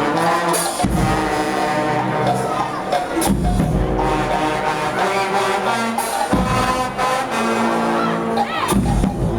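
Brass marching band playing a tune, the horns holding chords over occasional low drum hits.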